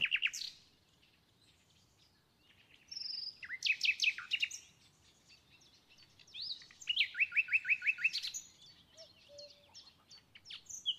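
Birds chirping: short bursts of quick, high chirps and trills, including a run of rapid repeated downward-sweeping notes, with pauses between the bursts.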